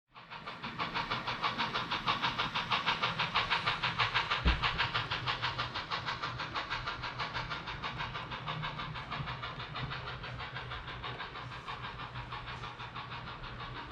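Train running, with a rhythmic clatter of about five beats a second over a steady low hum. It starts abruptly and eases a little after the first few seconds.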